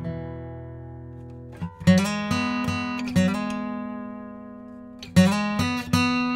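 Gibson Hummingbird Sustainable acoustic dreadnought, with walnut back and sides, played in chords. A chord rings and fades, then new chords are struck about a second and a half in and left to ring, and a fresh set of strums comes near the end.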